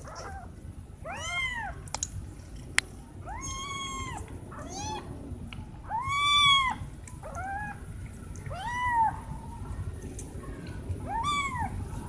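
Domestic cats meowing: about seven separate high-pitched meows that rise and fall in pitch, the loudest about six seconds in. A single sharp click just under three seconds in.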